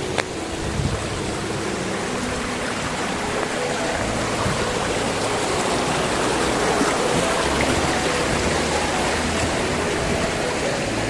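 Steady rushing water, an even, dense hiss like a stream or small waterfall, with faint background music underneath.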